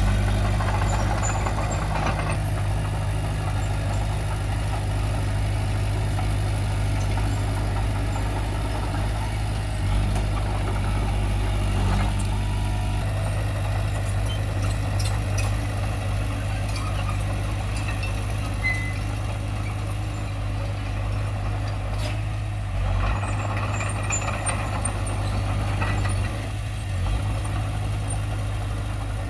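Diesel engine of heavy earthmoving machinery running steadily, with a few short knocks.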